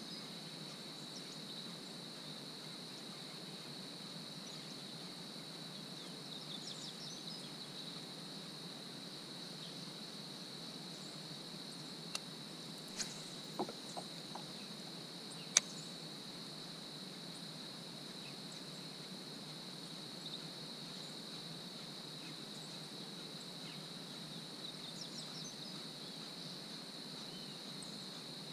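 A steady, high-pitched chorus of insects. A few sharp knocks sound around the middle, the loudest and last of them a single sharp crack.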